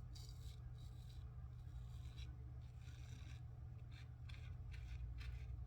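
Kampfe Bros. Star single-edge safety razor scraping through lathered stubble in short, irregular strokes, faint over a low steady hum.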